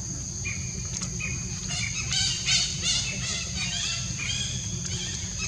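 High-pitched animal cries in a quick run, about three squealing calls a second, loudest around two to three seconds in, over a steady high drone.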